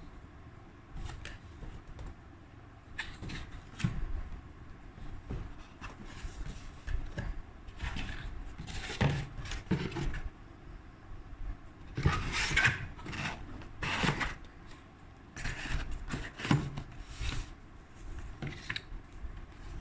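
Hands handling boxes, packaging and small products: irregular rustling and rubbing with light knocks and taps, busiest in the middle stretch.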